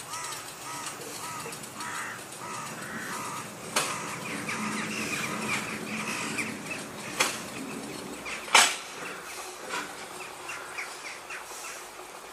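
Birds calling over and over, many short crow-like caws, with three sharp knocks about 4, 7 and 8.5 seconds in, the last the loudest, while a narrow-gauge steam locomotive is turned by hand on a turntable.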